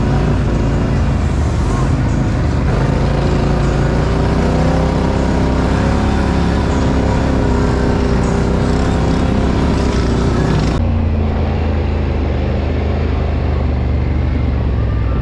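Off-road vehicle engines running hard, steady and loud. The sound changes abruptly about eleven seconds in and turns more muffled and bass-heavy.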